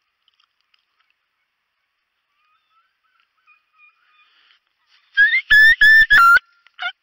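Wild turkey yelping: faint calls a few seconds in, then a run of four loud, evenly spaced yelps, and a quicker call falling in pitch near the end.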